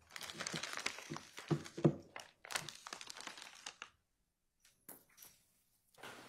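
Evidence items being moved and handled close to a microphone: paper or plastic rustling and crinkling with sharp knocks and clicks. It stops about four seconds in, with only a few faint clicks after.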